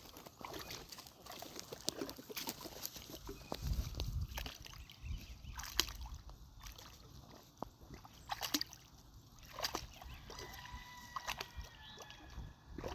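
Great Pyrenees dog splashing and sloshing in shallow, muddy pond water as it noses for a sunken duck egg, with irregular splashes and low sloshes.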